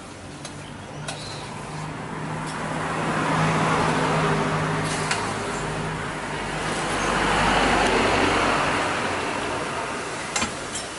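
Motor vehicles passing on the road, their engine and tyre noise swelling and fading twice. A few light clicks near the end.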